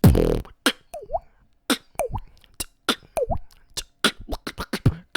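Mouth beatbox beat of quick kick and snare sounds with water drop effects mixed in: three short, pitch-gliding 'bloop' sounds among the percussive strokes.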